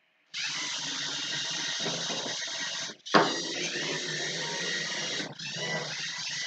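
LEGO Mindstorms EV3 robot's drive motors and gears whirring steadily as it drives a gyro-steered maneuver at speed 70. The motor noise stops briefly twice, near 3 s and near 5.3 s, with a sharp clack as it starts up again after the first stop. The gyro gain is set a bit too high, so the robot wobbles as it steers.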